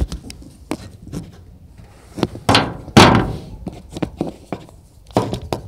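Handling noise from the camera being moved around: a string of knocks and thumps with rubbing, the loudest two close together about halfway through.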